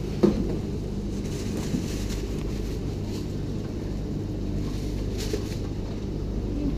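A steady low hum, with one sharp knock about a quarter of a second in and a few faint ticks later.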